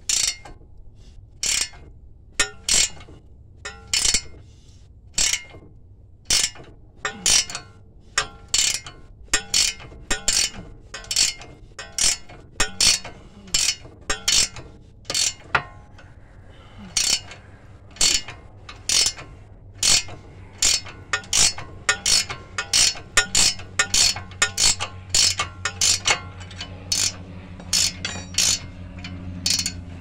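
Hand ratchet wrench clicking on each back-stroke as a stubborn locking nut (no cotter pin) is slowly worked off, the clicks coming about one to two a second and getting quicker in the second half.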